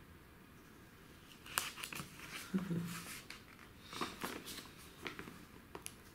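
Pages of a glossy paper magazine being turned and handled: a few soft, scattered paper rustles and crinkles.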